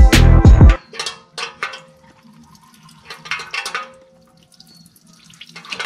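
A music bed cuts off less than a second in, leaving the trickle and splash of engine fluid draining from the 6.7 Cummins into a drain pan, with a faint low hum underneath.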